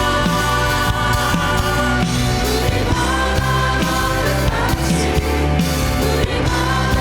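Live worship band and singers performing a praise song, with sustained sung and instrumental notes over a moving bass line.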